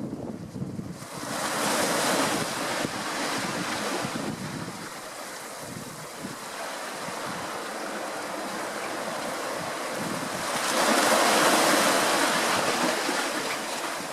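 Sea waves washing in: a steady hiss of water that swells twice, about a second in and again near the end, each surge fading over a few seconds.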